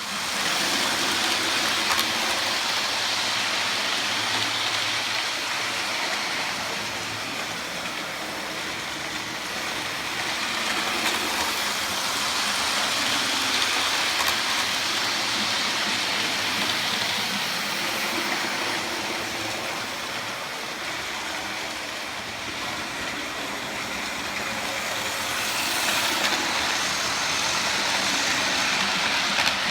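Hornby OO gauge model train running on its track: a steady rattling and motor whir that swells and fades slowly, about every twelve seconds.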